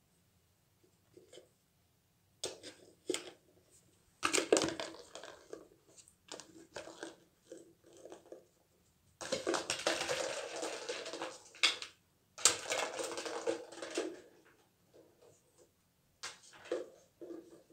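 A miniature schnauzer works a clear plastic treat cup with its mouth and nose, knocking and rolling it over carpet so the treats inside rattle. The sound comes in irregular bursts of rattling and sharp knocks, with two longer rattling spells in the second half.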